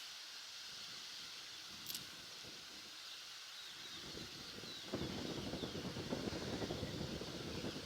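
Outdoor ambience with faint bird chirps throughout and a brief click about two seconds in; from about five seconds a louder, rough rustling, crackling noise sets in.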